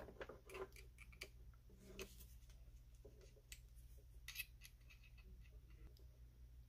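Faint, scattered small clicks and taps of a bit being handled and slid into the collet of a Dremel 4000 rotary tool, over a low steady hum.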